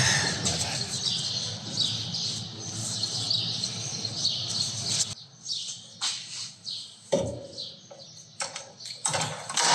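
Birds chirping over a steady background hum, which cuts off abruptly about five seconds in. After that come a few separate clicks and knocks of brake parts being handled.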